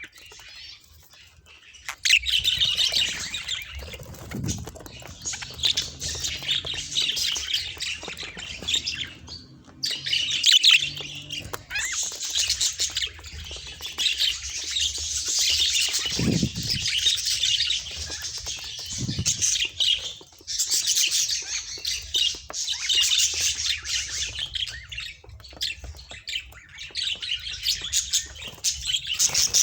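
Pet budgerigars chattering and squawking in a dense, continuous high-pitched warble, starting about two seconds in with a few short pauses.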